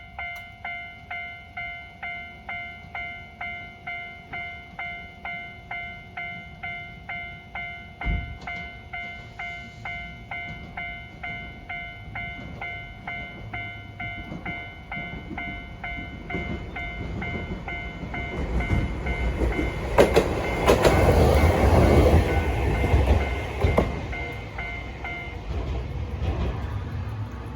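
A Japanese level-crossing warning bell ringing 'kan-kan' about twice a second while a Hankai Tramway car rumbles through the crossing, its wheels clicking over the rail joints as it passes. The bell stops shortly after the tram has gone. There is a single thump about a third of the way in.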